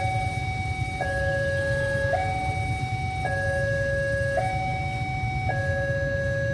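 Electronic level-crossing warning alarm sounding a steady two-tone hi-lo signal, switching between a lower and a higher tone about once a second, over a low rumble.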